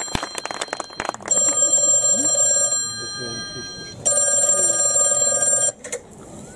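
A bell rings twice with a steady trill, each ring about a second and a half long with a pause between, like an old telephone or alarm bell; the second ring cuts off suddenly. A few clicks come just before the first ring.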